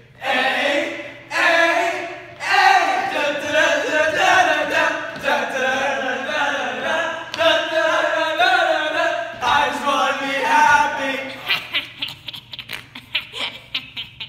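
A group of teenage boys singing a cappella together in harmony for about eleven seconds. Then a girl laughs in a quick run of 'ha's near the end.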